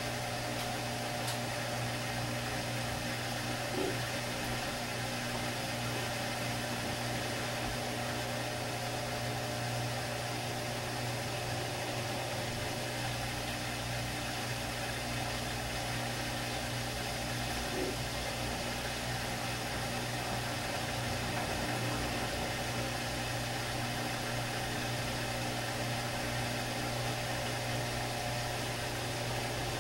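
Samsung Squall Jr. WD136 front-loading washer-dryer filling for its first rinse: water runs steadily into the drum over a constant low machine hum.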